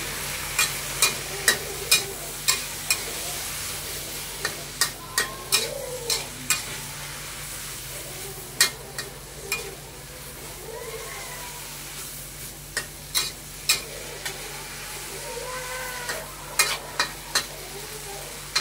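Water spinach stir-frying in a metal wok: a steady sizzle, with a spatula knocking and scraping against the pan in quick clusters of strikes, several times over.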